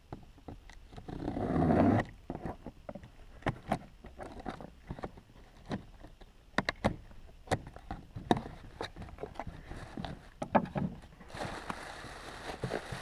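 Cardboard shipping box being opened: a rising scrape as the packing tape is slit about a second in, then clicks and rustles as the flaps are pulled open and handled. Near the end, plastic packaging crinkles as it is lifted out.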